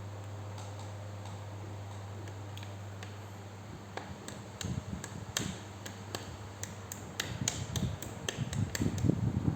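Irregular clicks and knocks of hard parts being handled, sparse at first, then denser and louder with low thuds from about four seconds in, over a steady low hum.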